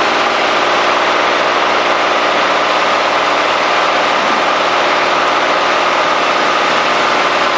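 Cessna 210D's six-cylinder Continental engine and propeller running steadily on final approach, propeller set forward for landing.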